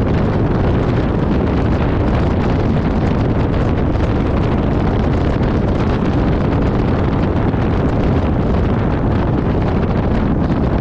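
Steady wind rush buffeting the microphone of a camera riding on a vehicle moving at highway speed, with vehicle and road noise mixed in.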